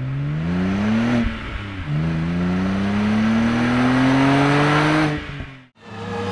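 Car engine accelerating: the pitch climbs for about a second, drops at a gear change, then climbs slowly again for about three seconds before fading out. Another engine sound starts just before the end.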